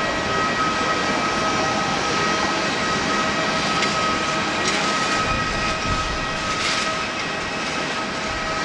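Jet engines of an Airbus A330-300 airliner running steadily: an even rush with a steady whine on top.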